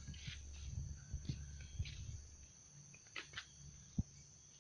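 Night insects chirring steadily at a high pitch under a low rumble, with a few short rustles and clicks and one sharp knock about four seconds in.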